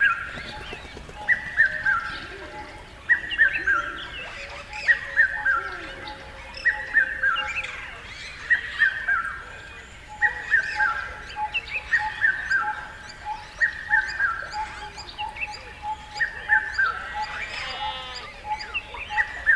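Birds singing: one repeats a short falling phrase of about three notes roughly every two seconds, while from about halfway another gives a steady run of short notes, about three a second. A harsher call comes in near the end.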